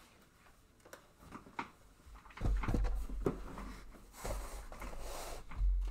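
Handling noise on a tabletop: faint clicks, then from about two seconds in, knocks and low bumps with rustling as a shrink-wrapped trading-card blaster box is picked up and handled.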